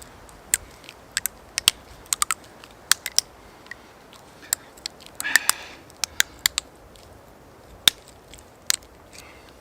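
Knife blade cutting and prising into silver birch wood to widen a tap hole: a string of sharp, irregular clicks, with a short scraping rasp about five seconds in.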